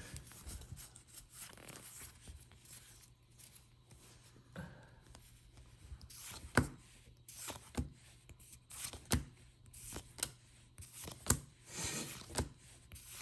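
Pokémon trading cards handled in a small stack, a faint rubbing of card stock at first. From about six seconds in, sharp clicks come roughly once a second as each card is slid off the front and snapped to the back of the stack.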